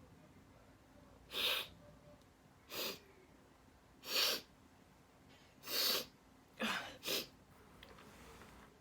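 A woman sneezing in a rapid run of six short, sharp sneezes, each followed by a brief gap; the last two come close together.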